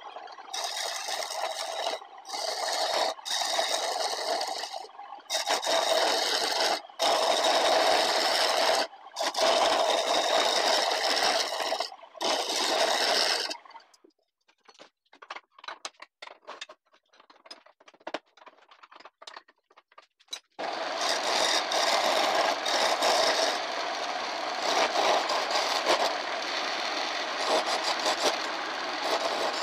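Steel file scraping along the edge of a woodturning chisel in repeated strokes, sharpening it. The strokes stop for several seconds about halfway through, with only a few faint clicks, then start again and run almost without a break.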